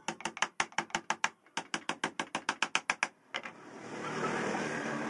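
Rapid, even hammer taps, about six or seven a second, that stop about three seconds in. A steady rushing noise follows.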